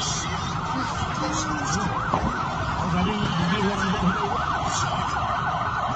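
Emergency vehicle sirens yelping in rapid rising-and-falling sweeps that overlap one another, over a steady din of street noise.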